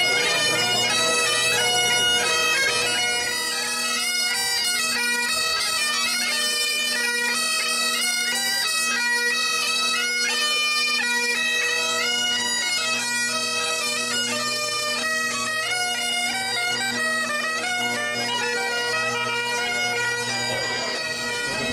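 Several bagpipes playing a tune together: a steady drone sounds under a melody that steps from note to note.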